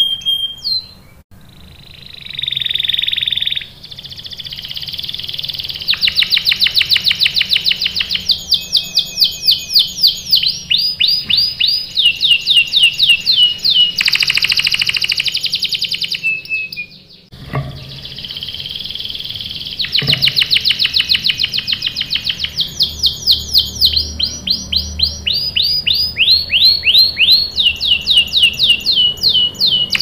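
Domestic canary singing long rolling trills: phrase after phrase of fast repeated sweeping notes, with a short pause a little past halfway.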